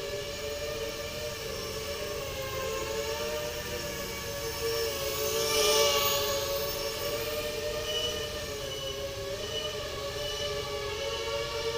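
FPV quadcopter motors and propellers whining, the pitch wavering slightly with throttle changes. Louder about six seconds in, with a brief rush of air noise.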